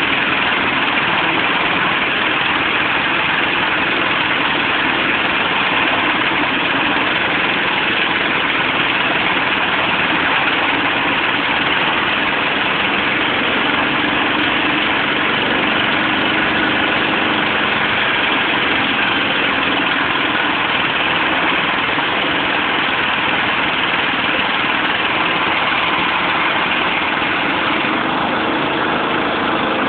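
Engine of a hydraulic band sawmill running steadily and loud, with no change in speed.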